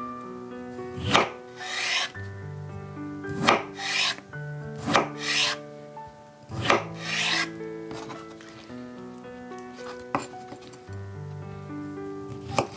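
Kitchen knife slicing through boiled bamboo shoot onto a cutting board: a series of crisp cuts, about one a second, thinning out in the second half. Background music plays under it.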